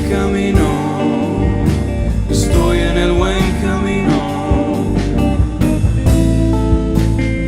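A band playing a rock song: regular drum hits under bass and electric guitar, with a lead line bending in pitch.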